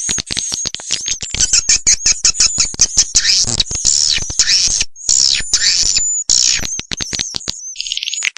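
Swiftlet call lure track: rapid high-pitched chirps and twitters mixed with dense fast clicking. The audio is edited and looped, and cuts off abruptly for brief gaps about five and six seconds in.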